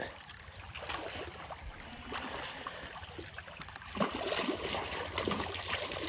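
Shallow creek water trickling and gurgling over rocks, with scattered light clicks and splashes as a hooked bass thrashes near the surface, busier about four seconds in.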